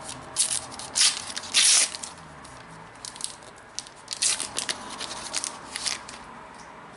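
Foil wrapper of a Panini Adrenalyn XL trading card pack being torn open and crinkled, with the cards handled: a string of short crackling rustles, the longest about two seconds in, then a quick cluster between about four and six seconds.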